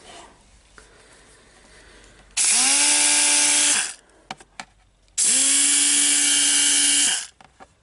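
Parkside PDSS 16 A1 air die grinder run free twice, about a second and a half and then two seconds, each time a steady high whine over a loud hiss of compressed air, settling in pitch just after the trigger is pressed. A few sharp clicks come between the two runs.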